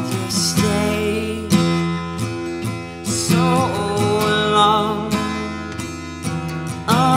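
Gibson acoustic guitar strummed and picked in a steady song, with a man's voice singing over it in phrases, notably in the middle and again near the end.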